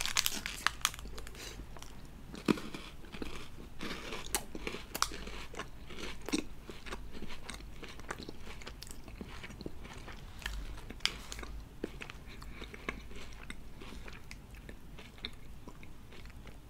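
Close-miked biting and chewing of a crunchy KitKat chocolate wafer bar: sharp, crisp crunches that come thick and fast in the first couple of seconds, then thin out into slower chewing.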